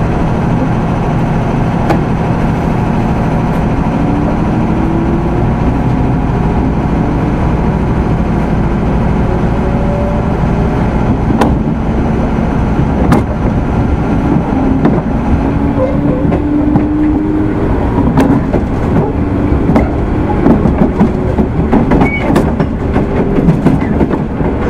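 205 series 600 subseries electric train running, heard from inside the motor car MoHa 204-602: a steady rumble of wheels on rail, a faint traction-motor whine that rises slowly at times, and a few sharp clicks.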